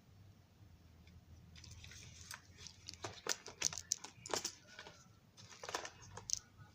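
Handling of small model railroad car parts: a run of light, sharp clicks and taps, busiest in the middle, then a few more near the end.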